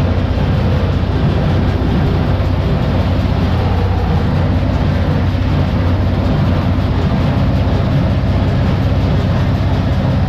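Tractor engine running steadily under load, driving a Sipma Z224 small square baler by its PTO shaft as it picks up and bales a windrow of dry hay. The steady drone is heard from inside the tractor cab.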